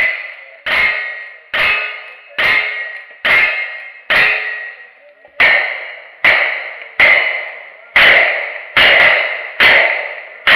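Rapid-fire gunshots, about one every 0.8 s, each followed by the ring of struck steel targets. A lever-action rifle fires first; after a slightly longer pause about halfway through, shooting carries on at the same pace with a revolver.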